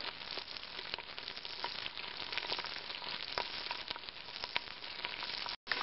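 Sliced onions sizzling in hot oil in a stainless steel pot, a steady frying hiss dotted with small crackling pops.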